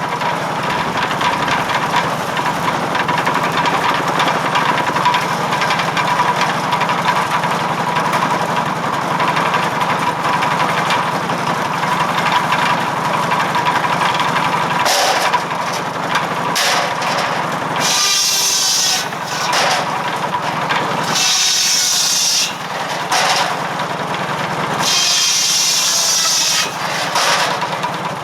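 Circular firewood saw (buzz saw) powered by a 1945 McCormick W-4 tractor, cutting logs. The blade runs with a steady whine and bites in several harsh cuts in the second half, over the steady running of the tractor's four-cylinder engine.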